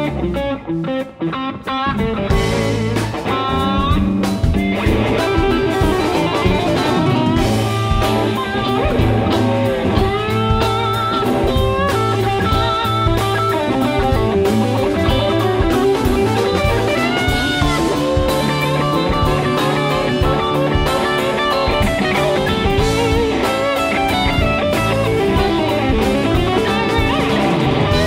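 A live band plays a bluesy rock instrumental section: an electric guitar leads with bent notes over bass and drums. The music drops out briefly about a second in.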